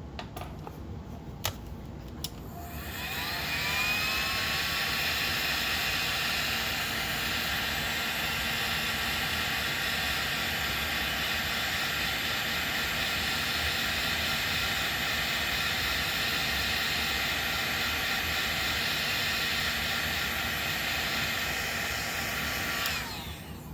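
Heat gun switched on after a couple of clicks: its fan motor spins up with a rising whine, then runs steadily with a loud airy hiss. It shuts off near the end.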